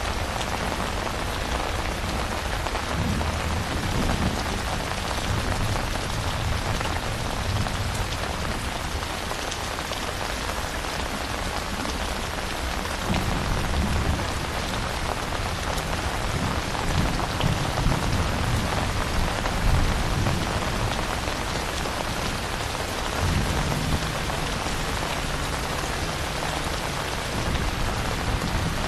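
Steady rain falling on a surface, with low rumbles of distant thunder swelling up several times beneath it.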